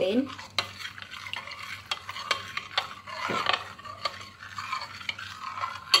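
Metal spoon stirring powdered milk into water in a bowl, scraping around the bowl with irregular light clinks against its sides.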